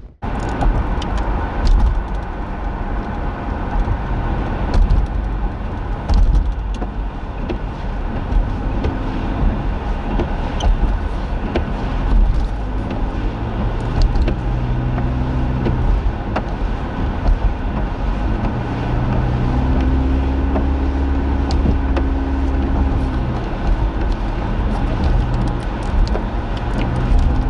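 Car driving along a highway, heard from inside: steady engine and road rumble.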